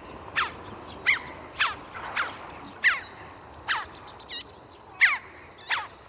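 Red-billed chough calling repeatedly: about nine sharp, high, jackdaw-like calls, each sweeping down in pitch, over steady background noise.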